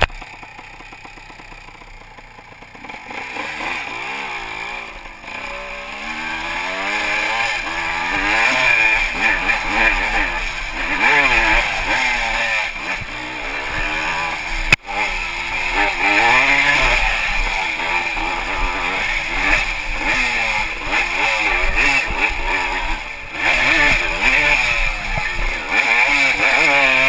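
Yamaha IT200 two-stroke enduro motorcycle engine on a trail ride, quieter for the first few seconds, then revving up and down again and again as the throttle opens and closes. A sharp click and a brief dropout come about halfway.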